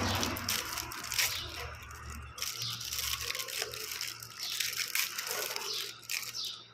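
Soap bar's packet being torn and crinkled open by hand: a dense run of crackles and rips.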